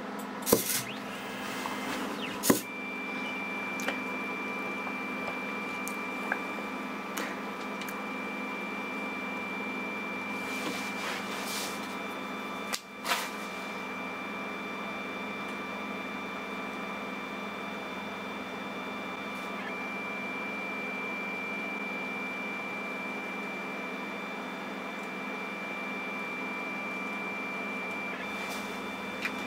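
Desktop CNC pen plotter's stepper motors running as the pen carriage draws lines, with a steady high whine. Sharp clicks near the start, and another about 13 seconds in.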